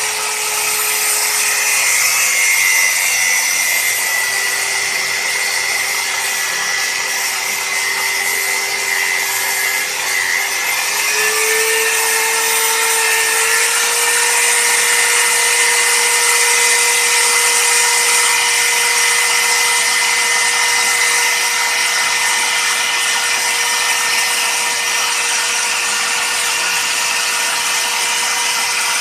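Angle grinder's abrasive cutoff disc cutting deep into a steel vise: a steady, loud grinding with the motor's whine underneath. The whine sags a little in pitch about four seconds in, then climbs back to a higher steady pitch about eleven seconds in as the load on the disc changes.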